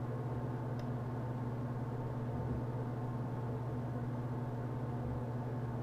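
Steady low hum of room background noise, unchanging throughout, with one faint tick about a second in.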